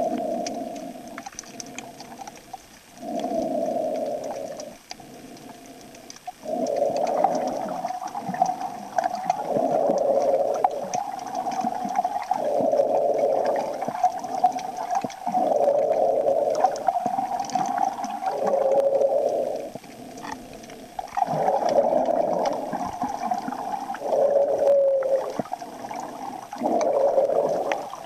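Muffled underwater noise picked up by the filming camera, swelling and fading every second or two.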